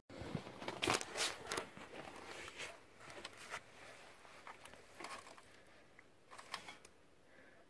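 Faint rustling and scattered clicks from a hand and jacket sleeve reaching in around the dirt bike's exhaust pipe and frame, the louder clicks in the first two seconds. No engine is running.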